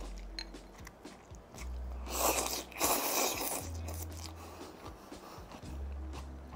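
A person slurping cold ramen noodles in tomato-juice broth from a bowl, with one loud slurp a little past two seconds in, and crisp crunching as she chews the raw vegetables mixed through the noodles.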